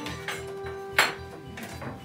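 Background music with held notes, and one sharp clink about a second in.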